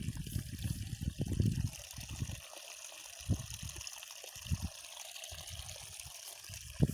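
Water trickling steadily, with irregular low rumbles and thumps on the microphone, heaviest in the first two seconds.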